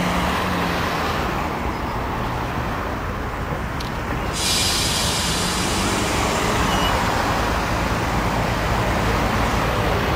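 Blackpool tram running on street track amid road traffic noise, a steady rumble and rush. About four and a half seconds in, the sound turns abruptly brighter and a little louder.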